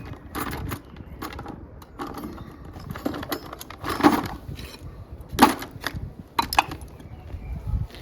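Scrap metal clinking and knocking from a fishing magnet's haul: a run of sharp clicks, the loudest about four and five and a half seconds in, with a low rumble near the end.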